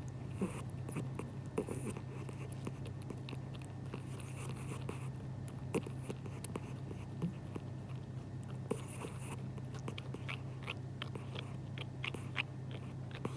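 A sleeping cat smacking its lips and working its jaws as if chewing, a scatter of small wet clicks that come thickest near the end. The uploader takes it for the cat dreaming of eating.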